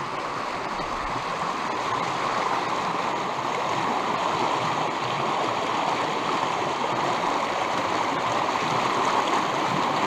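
A small river rushing over a low stone weir into white water: a steady rush of water that grows a little louder over the first few seconds as the microphone nears the cascade.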